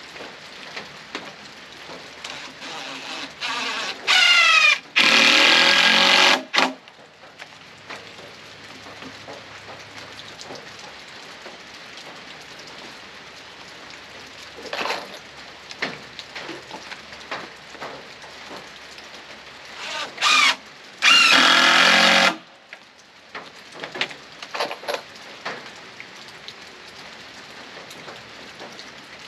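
A power drill driving screws into wood in two bursts, about four seconds in and again about twenty seconds in. Each burst rises in pitch as the motor spins up and then runs steadily for a second or two. A few light knocks of wood being handled fall between them.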